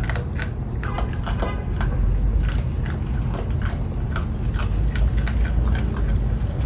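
Raccoons crunching dry plant-based kibble: a quick, irregular crackle of bites and chewing over a low steady rumble.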